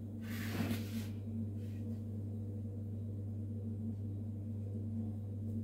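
Steady low electrical hum with a few higher overtones. A brief soft rustle comes in the first second.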